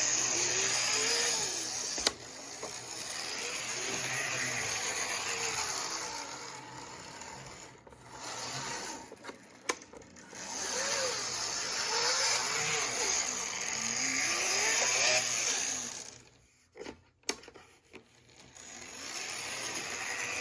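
Tyco HO-scale trolley's small electric motor and gearing running along the track, a buzzing whine that swells and fades as it travels, with its pitch rising and falling. The sound drops away twice, about 8 and 17 seconds in, with a few sharp clicks.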